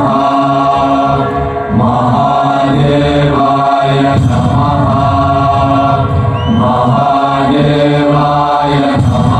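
Chanting with music: voices holding long notes that change pitch every second or two.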